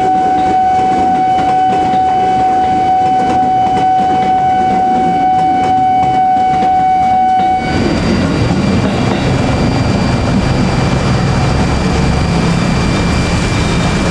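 Train passing a railway level crossing in heavy rain. For the first half a steady high-pitched warning tone sounds. About halfway through it gives way abruptly to the low rumble of the train mixed with the hiss of rain.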